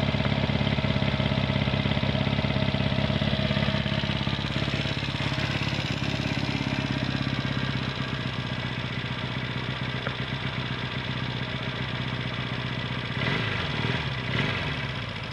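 1972 Honda CB175's air-cooled parallel-twin engine idling steadily, freshly started, with two short revs of the throttle near the end.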